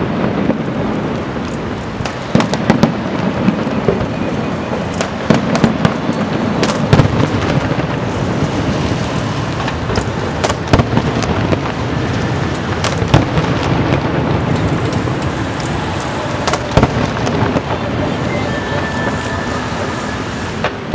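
Aerial fireworks display: shells bursting in close succession, many sharp bangs over a continuous rumble.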